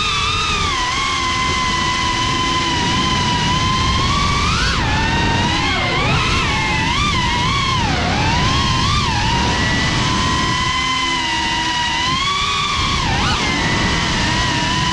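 GEPRC Cinelog35 ducted FPV quadcopter's brushless motors and propellers whining, heard from its onboard camera. The pitch rises and falls with the throttle, swinging quickly up and down midway and again briefly near the end.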